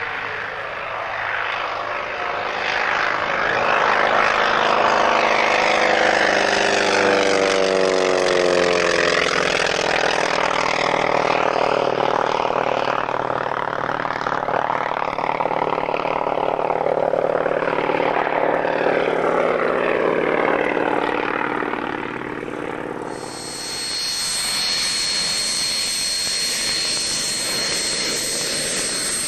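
Single-engine piston warbird running at high power in a low pass, its engine and propeller note falling in pitch as it goes by, then fading as it climbs away. Near the end a steady high-pitched whine comes in over the sound of engines.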